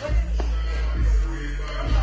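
Hip hop beat with heavy bass, playing as background music.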